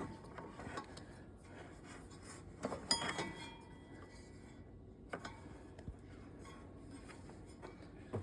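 Faint rubbing and scraping as a rubber fan belt is worked by hand around a tractor's fan blades and pulleys, with a short metallic clink that rings briefly about three seconds in.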